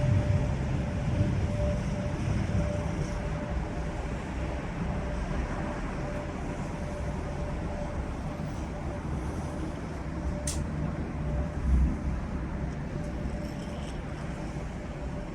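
A low, steady rumble of unknown origin with a thin continuous hum tone held above it, the 'strange sound in the sky'. A single sharp click about ten seconds in, and the rumble swells briefly soon after.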